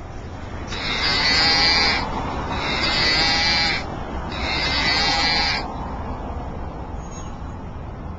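Souvenir Texas Longhorn toy playing its recorded 'moo' three times, each call a little over a second long.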